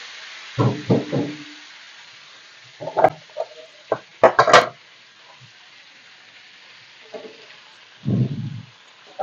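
Sweet pumpkin chunks sizzling faintly in hot oil in a wok, with a few short knocks and clatters in between.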